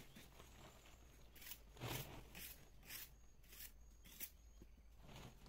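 Faint footsteps in rubber boots crunching over dry leaf litter, about two steps a second.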